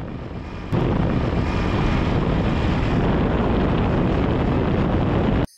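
Suzuki GN125's single-cylinder four-stroke engine running on the move, mixed with wind noise on the microphone. It gets louder about a second in and cuts off suddenly just before the end.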